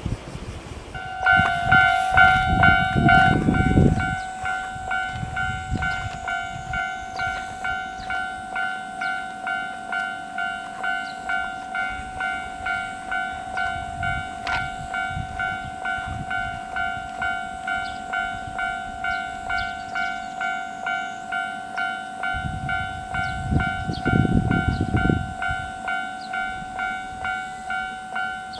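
Japanese railway level-crossing warning bell ringing: a clanging electronic tone repeating steadily about twice a second. A low rumble rises under it twice, near the start and again about three-quarters of the way through.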